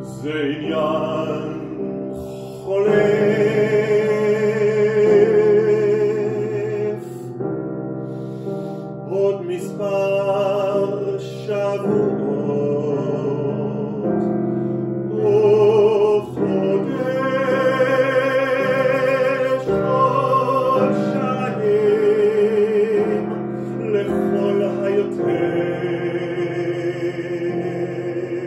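A man singing a slow song in phrases with vibrato, accompanied by a grand piano. The voice drops out briefly between phrases while the piano rings on.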